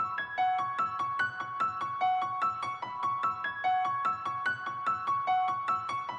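Background music: quick, evenly spaced notes on a piano-like keyboard, a short gentle phrase repeating about every one and a half seconds.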